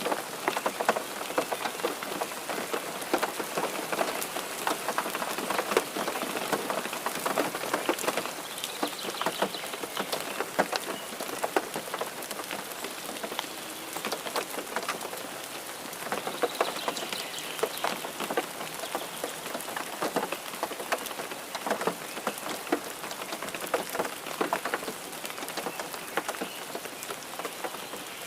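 Steady rain falling on a surface, a dense patter of many individual drop hits over a continuous hiss.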